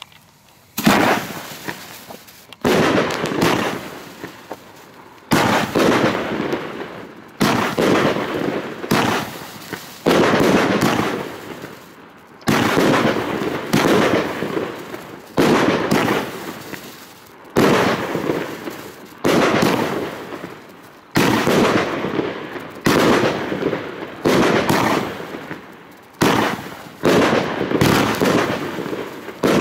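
Luypaers 'Canada Lynx' consumer firework cake firing shot after shot, the first about a second in, then roughly one every one and a half to two seconds. Each shot starts with a sudden bang and fades away over a second or so.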